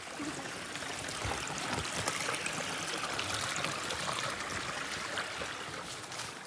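A small mountain stream running, a steady rush and trickle of water that grows louder a couple of seconds in and fades again near the end. It flows after a week of rain rather than lying dry.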